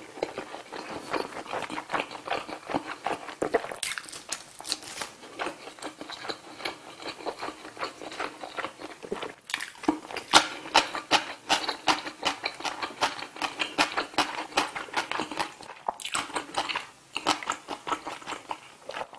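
Close-miked chewing of a mouthful of grilled saury with rice: a dense run of wet mouth clicks and smacks that goes on with brief pauses.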